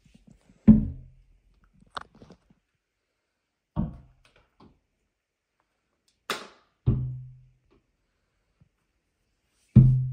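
A ball striking the window glass again and again: four hollow thuds about three seconds apart, each with a short low ring from the pane. A sharper, higher knock comes just before the third thud.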